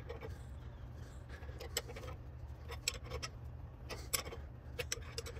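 Irregular light metal clicks and taps of a box-end wrench being refitted and turned on a seized rear brake caliper piston from a 1982 Honda Goldwing, held in a bench vise, as the piston is worked out of its bore. A steady low hum runs underneath.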